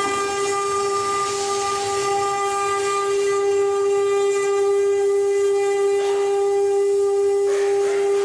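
CNC wood-carving router's spindle running with a steady high whine, with a couple of brief rougher bursts about six and seven and a half seconds in.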